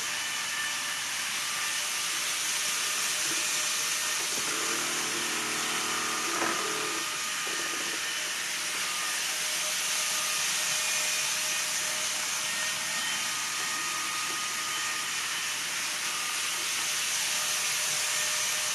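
Shinkansen running-noise sound effect: a steady hiss of train noise with faint whining tones, and a brief run of stepped tones about five to seven seconds in.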